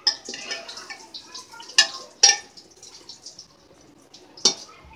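Metal ladle stirring vegetables and tomato masala as they fry and bubble in a pressure cooker pot, with three sharp metallic clinks of the ladle against the pot, two about two seconds in and one near the end.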